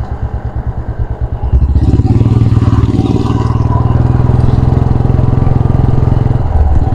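Royal Enfield Classic 350's single-cylinder engine thumping at low revs, its separate beats audible, then opening up louder about a second and a half in and running steadily as the bike rides on.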